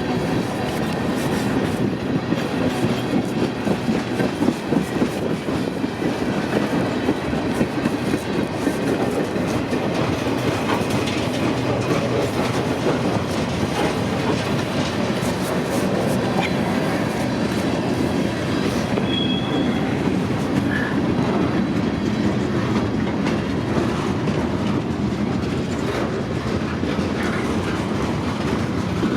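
Freight train cars rolling past, a steady rumble with wheels clacking over the rail joints and a brief high wheel squeal about two-thirds of the way through.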